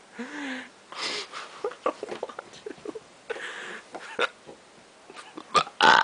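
A young man's unusual hiccups, squeaky and wheezy, half hiccup and half burp ('hicburps'), coming several times in a row. A short pitched squeak rises and falls near the start, and the loudest hiccup comes near the end.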